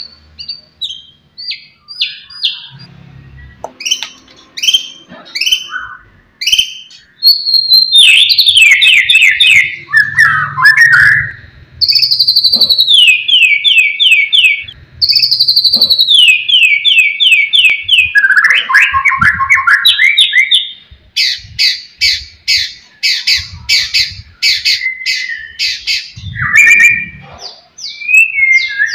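White-rumped shama (murai batu) in full song: short whistled phrases at first, then long loud runs of rapid repeated notes, several of them sliding down in pitch.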